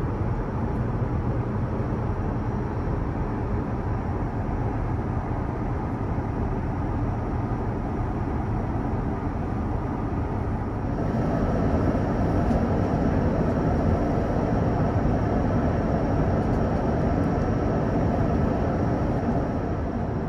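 Steady rushing cabin noise of an airliner in flight, heaviest in the low range. About halfway through it grows a little louder and a faint high whine joins it.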